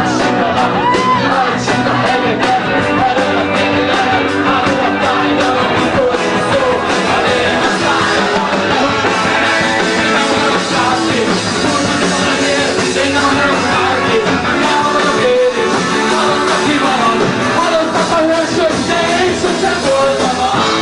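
Rock band playing fast punk-style rock, with a steady drum beat and a singer.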